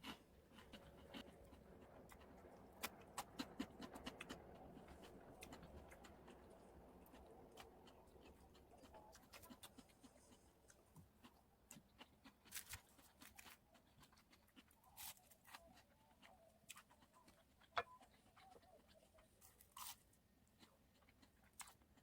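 Faint eating sounds: crunchy chewing of fried chicken cutlet, with scattered small clicks and crackles.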